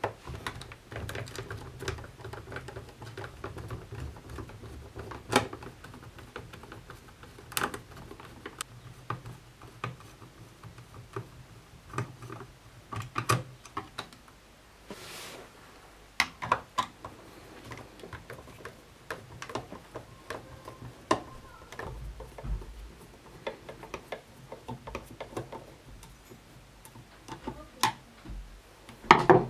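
Irregular small clicks, ticks and knocks of a screwdriver working Pozidriv screws out of a Dyson V10 vacuum's plastic housing, with a brief hiss about halfway through.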